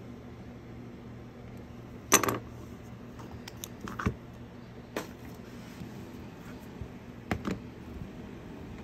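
Hard clicks and knocks of a small knife and mold pieces handled on a workbench: a loud clatter about two seconds in, single knocks around four and five seconds, and two close together near the end, over a steady low hum.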